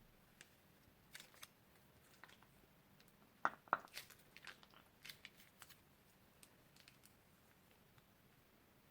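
Irregular crisp clicks and crackles from handling slime-making materials, with two sharp snaps, the loudest, about three and a half seconds in.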